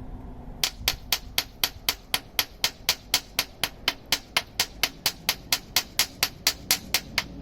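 A rapid, perfectly regular series of sharp clicks, about four a second, starting shortly after the beginning, over a steady low background.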